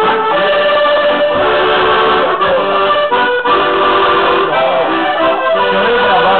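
Piano accordion playing a traditional ceilidh tune, the notes changing in quick succession.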